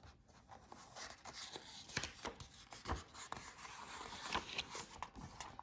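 Paper pages of a picture book rustling and rubbing as they are handled and a page is turned, with scattered small ticks.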